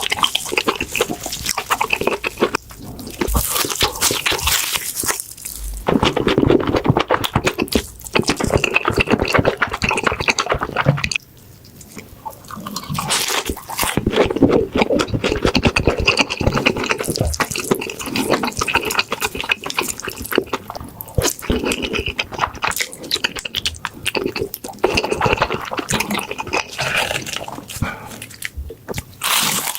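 Close-miked chewing and crunching of crispy fried pork cutlet (tonkatsu): a dense run of crackles from the fried breading, with a brief lull about eleven seconds in.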